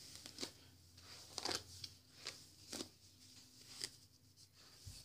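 A hairbrush dragged through long, freshly straightened hair: a string of faint, short brushing swishes, roughly one every half second.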